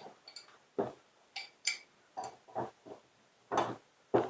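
Short strained grunts of effort, about eight in a few seconds, mixed with a couple of bright metal clinks as a wrench is worked to get a better bite on a stuck hydrant part.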